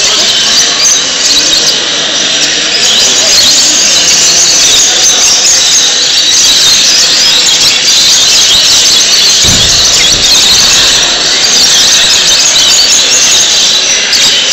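Many caged parrots and lovebirds calling at once, a loud, continuous high-pitched din. A brief low thump about nine and a half seconds in.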